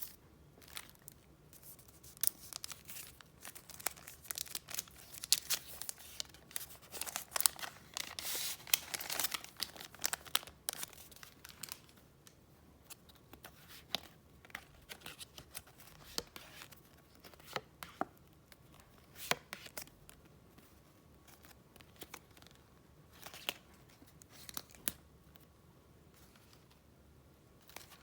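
Paper and paper packaging handled close up: rustling, crinkling and small sharp clicks, in quick bursts for the first ten seconds or so, then sparser.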